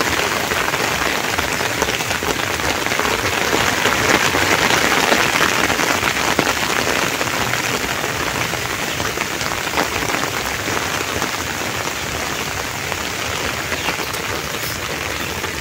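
Steady rain falling on grassy fields and trees: an even, unbroken hiss of drops, swelling slightly a few seconds in.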